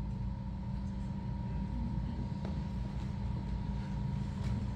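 Low, steady background rumble with a faint even hum: the hall's room tone.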